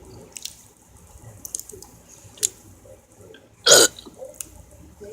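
A person deliberately burping on command: one loud, short burp about three and a half seconds in, after a few faint clicks.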